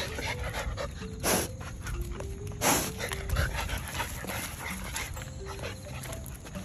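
Light background music of short notes over animals snuffling and moving about on gravel, with two loud noisy sniffs or snorts about one and three seconds in.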